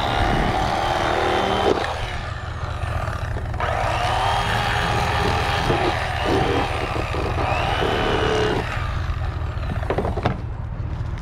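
Corded electric fillet knife running as its blades saw through a crappie fillet, on less than full power. It buzzes for about two seconds, stops, starts again at about three and a half seconds, and stops near nine seconds.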